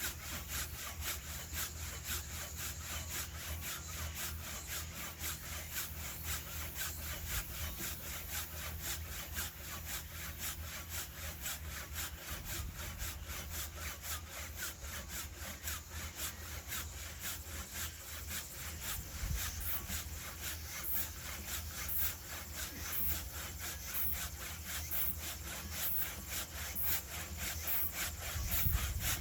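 Hand saw cutting through firewood logs in a steady back-and-forth rhythm of rasping strokes.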